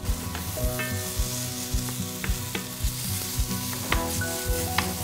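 Sliced onions sizzling in a little hot oil in a stainless steel frying pan, the sizzle starting as they go in. A wooden spoon stirs them, knocking and scraping against the pan about twice a second.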